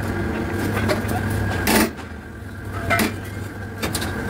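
Steel excavator track chain links clanking a few times as they are handled and set into a pin press, over a steady low hum.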